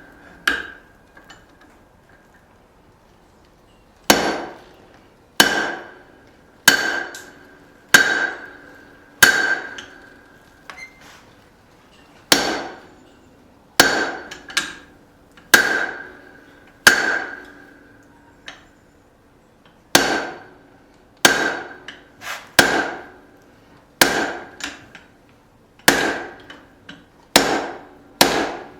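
Hammer blows on an anvil, each with a short ringing tone, starting after a pause of a few seconds and then coming about once a second, some in quick pairs: hot steel being drawn out into the reins of a pair of blacksmith's tongs.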